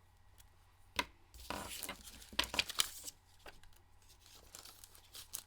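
A sharp click about a second in, then a second and a half of paper rustling and crinkling with a few sharp snaps, as cardstock and paper are handled on a craft table.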